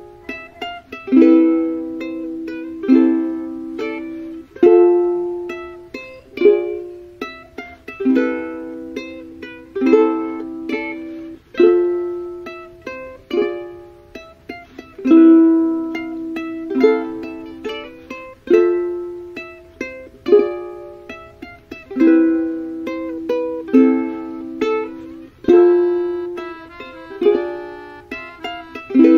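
Background music: a plucked string instrument strumming chords in a steady repeating pattern, each chord ringing and dying away.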